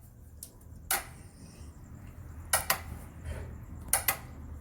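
Bajaj Avenger 220 starter relay clicking as the starter button is pressed, with no cranking and no engine start: a sharp click about a second in, then two quick double clicks. The fault is a loose starter relay that is not making a proper connection.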